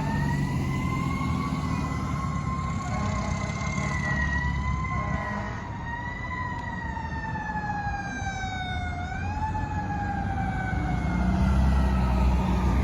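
Fire engine siren wailing, its pitch sliding slowly up and down, over the low rumble of the fire truck's engine, which grows louder near the end.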